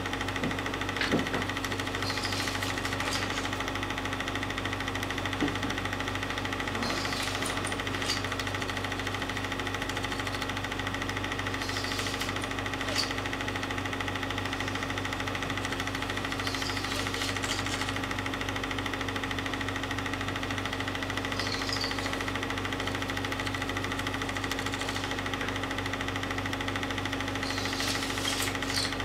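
Home-movie film projector running: a steady mechanical whirr and clatter over a constant hum, with a few faint clicks.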